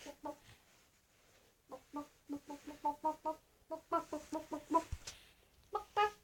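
A person imitating a hen's clucking with their voice: a couple of clucks, a pause, then a quick run of short clucks about four or five a second, and a few more near the end.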